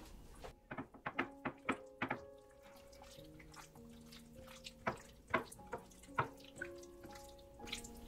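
Bare hands mixing raw chicken pieces through a sticky sauce-and-spice marinade in a glass dish: wet squishing and smacking sounds, a quick run of them in the first two seconds and a few more around the middle. Soft background music with held notes plays throughout.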